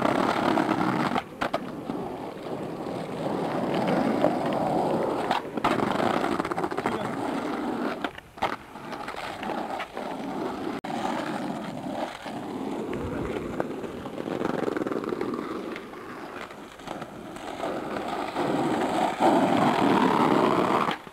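Skateboard wheels rolling on an asphalt road, the noise rising and falling as the board speeds up and slows, with a few sharp clicks along the way. It is heard off a worn, crackly VHS tape.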